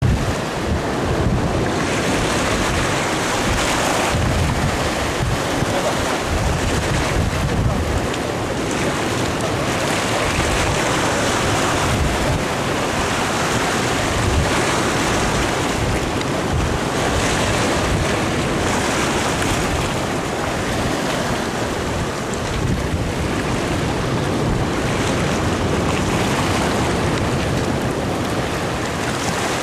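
Sea waves surging and washing over a rocky shore in a steady, swelling wash of surf, with wind buffeting the microphone.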